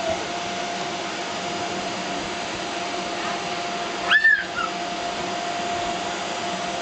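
Steady whir of an inflatable bounce house's electric blower fan, with a faint steady hum. About four seconds in, a child gives one brief high squeal.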